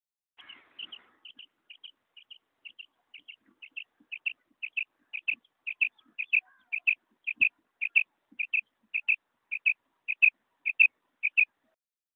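Female quail (batair) calling: a short two-note call repeated about twice a second, about twenty times, growing louder over the first half.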